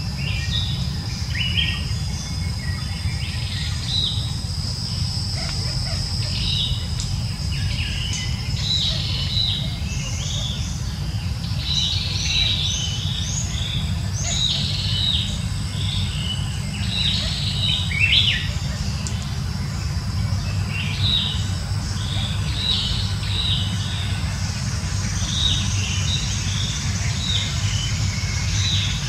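Small birds chirping in quick, repeated short notes, with a thin steady high whine for the first several seconds. A steady low rumble runs under them.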